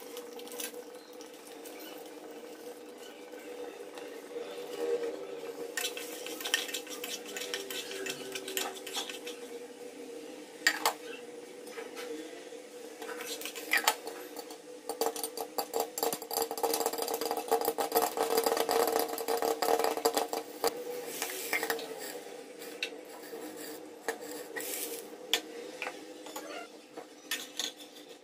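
Popcorn kernels popping in a pan covered with a glass lid: scattered pops start a few seconds in, crowd into a dense run of pops in the middle, then thin out again. A steady hum runs underneath.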